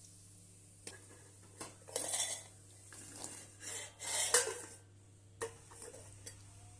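Metal kitchen utensils clinking and scraping against a pot or dish in a string of irregular knocks, the loudest a little past four seconds in.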